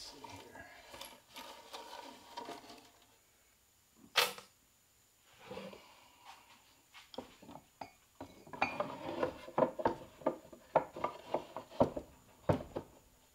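Steel parts of a transfer-case clutch pack and its shim-setting tool being handled on a wooden bench: thin metal shim strips slid and gathered, a single sharp metallic clack about four seconds in, then a quick run of clinks and knocks as the heavy tool pieces are moved and set down.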